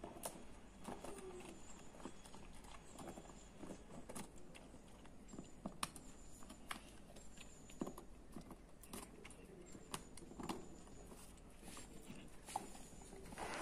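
Greater Swiss Mountain Dog chewing and gnawing a hard, frozen bread roll: quiet, irregular crunches and clicks.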